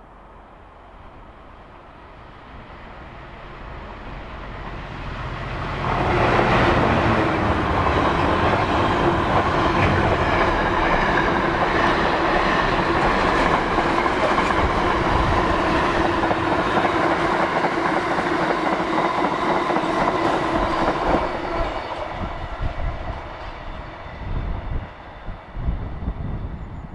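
A Class 66 diesel locomotive hauling a container freight train. It grows louder over the first six seconds, then the engine and a long rake of container wagons run past with a steady tone over the rumble. After about 21 seconds it dies away into uneven wheel clatter from the last wagons.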